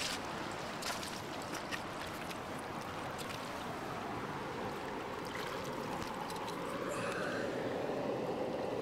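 Steady rushing of river water, with a few faint clicks near the start.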